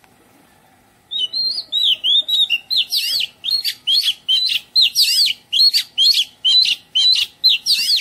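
Oriental magpie-robin singing a loud, fast run of short swooping whistled notes, about two a second, starting about a second in.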